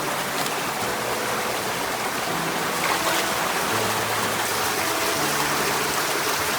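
Steady rushing of flowing water, an even hiss, with soft background music of held low notes that change every second or so.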